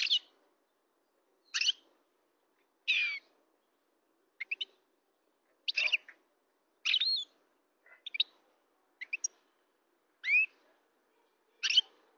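European goldfinch singing in short, separate twittering phrases of quick up-and-down notes, about ten phrases roughly a second apart.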